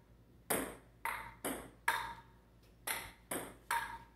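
Table tennis rally: a ping pong ball clicking sharply off paddles and the table about twice a second, some hits ringing briefly, with a pause of about a second partway through.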